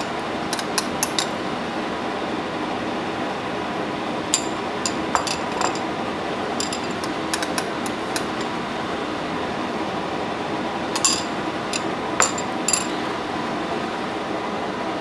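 A steady background hum with light, sharp clinks scattered through it, several in quick succession about a second in and another cluster near the end.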